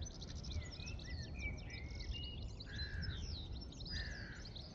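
Birds calling: a busy run of quick high chirps and twitters, with a few short harsh calls that stand out, over a steady low background rumble.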